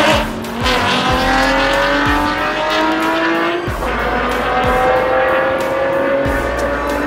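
Two drag-racing cars, one a sixth-generation Chevrolet Camaro, at full throttle down the strip. The engine notes climb steadily in pitch and drop at each upshift, most clearly about four seconds in.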